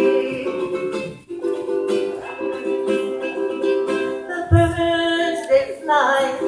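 Ukulele playing the accompaniment of a Hawaiian song between sung lines, with a short break about a second in.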